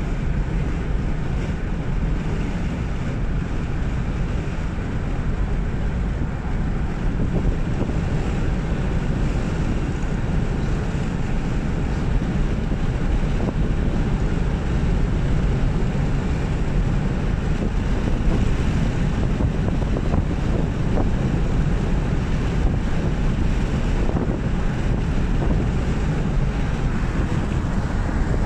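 Steady road noise and engine hum inside a car cruising along a highway, with wind rushing past.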